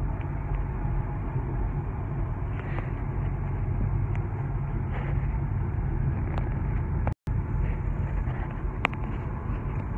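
Steady road and engine rumble heard inside a car's cabin at highway speed, with the sound cutting out for a moment a little after seven seconds in.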